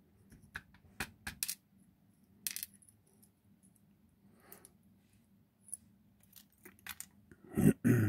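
Light metallic clicks and ticks of a Ruko 600 lock cylinder's brass plug, key and pins being handled as the lock is taken apart, a few sharp isolated clicks spread through, with a louder bump near the end.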